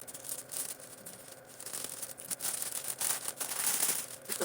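Packaging being torn open and crinkled by hand, in irregular rustling bursts as a mailed package is unwrapped.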